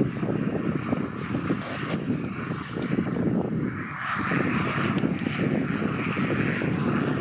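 Piper PA-46 Malibu single-engine propeller aircraft running along the runway, a steady rough engine-and-propeller noise that grows brighter and hissier about four seconds in.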